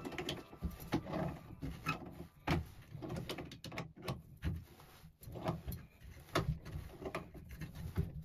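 Irregular clicks and knocks of hand tools and plumbing parts being handled while a faucet is fitted, about one or two a second.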